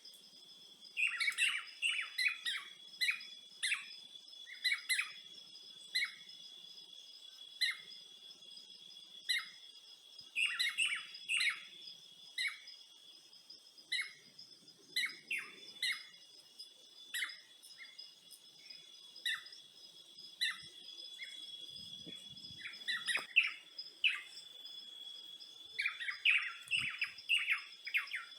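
Birds chirping in short, repeated calls, some in quick clusters, over a steady high-pitched drone of insects.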